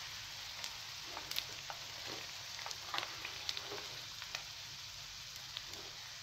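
Faint sizzle of oil deep-frying: a steady hiss with scattered small crackles.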